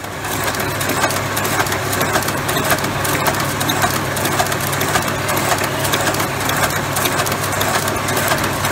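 Pencil ferrule and eraser fitting machine running: a steady motor hum under a dense, rapid clatter of metal clicks from its feed and fitting mechanism.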